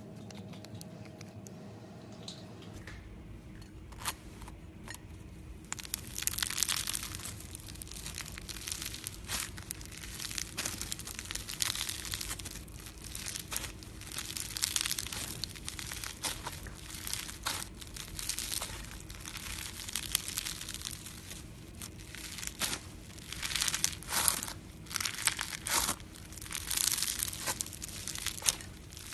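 Slime squeezed and stretched by hand, giving irregular bursts of crackling and crinkling pops, louder in clusters from a few seconds in.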